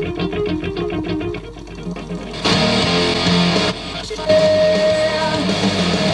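Rock music with a picked electric guitar figure, the full band coming in louder about two and a half seconds in. It is playing from a badly worn test disc in a Sony mini CD player, and it plays through without obvious skipping, a sign that the player is tracking the damaged disc well.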